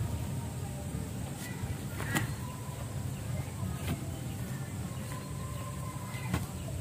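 Digging: a few sharp knocks of a tool striking earth, roughly every two seconds, over a steady low rumble.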